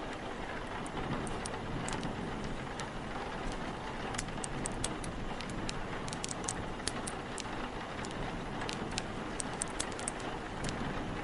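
Steady rain and wind with scattered sharp crackles and pops from a wood fire, coming more thickly from about a third of the way in.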